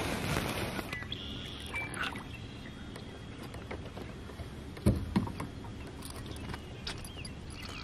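Northern pike splashing and thrashing at the surface beside an aluminium boat as it is landed. About five seconds in come two dull knocks, close together, on the boat. A bird chirps in the background.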